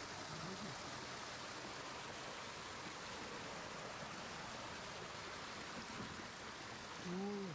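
A small mountain-stream cascade pouring over granite close by, a steady rushing of water. Near the end a person gives one short voiced sound.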